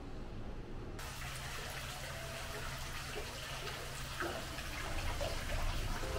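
Small fountain jet in an indoor pond splashing steadily, starting about a second in.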